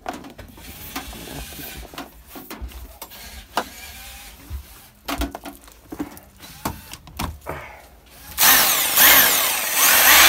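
Clicks and knocks of handling a reassembled Vitals rotary hammer, then about eight seconds in its electric motor starts and runs loudly on a test run after the repair.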